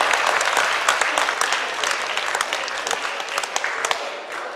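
Audience applause, many people clapping, fading away near the end.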